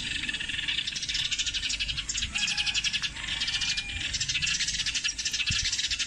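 Sparrows chirping in a rapid, continuous chatter of short, high chirps.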